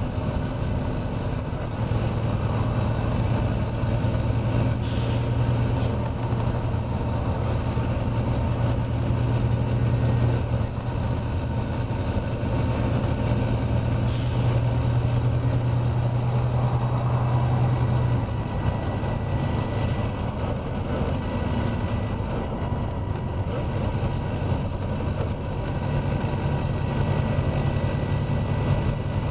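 Volvo B9TL bus's straight-six diesel engine running steadily under load, its note dropping about 18 seconds in. Short air hisses come twice, about 5 and 14 seconds in.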